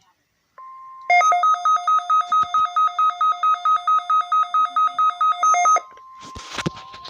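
Electronic alert tones of a weather radio test broadcast: a steady beep starts about half a second in, then a loud two-note alert tone pulses about four times a second for nearly five seconds and stops abruptly, leaving the quieter steady beep running on.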